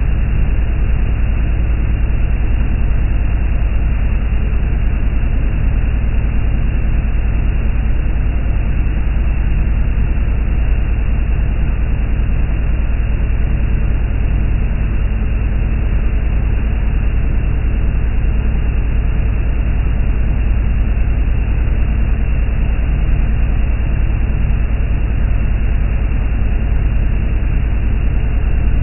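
A speedboat running fast across open water: heavy wind rumble on the microphone over a steady engine drone and the rush of spray off the hull, unchanging throughout.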